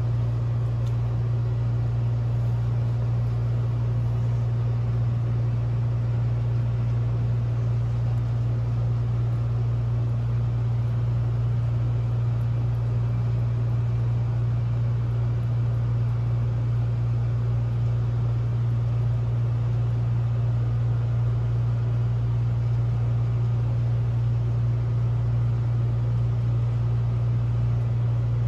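A steady low hum that does not change, drowning out any sound of the cats eating.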